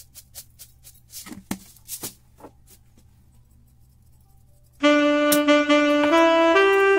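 A few sharp clicks and rattles as sesame seeds are shaken from a plastic shaker over a bowl of raw eggs. About five seconds in, loud music begins, led by held saxophone-like notes.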